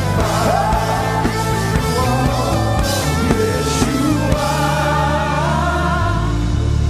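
Live gospel worship music: a band with drums and sustained bass notes under singing voices. About two-thirds of the way in the voices hold long wavering notes over a steady bass.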